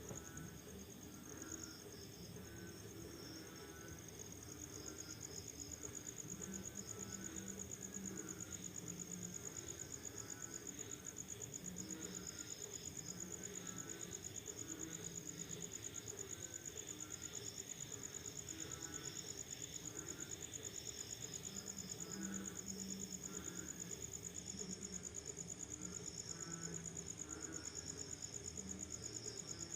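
Crickets trilling steadily in a high, fast-pulsing chorus, with frogs calling repeatedly underneath in lower croaks, after rain at night.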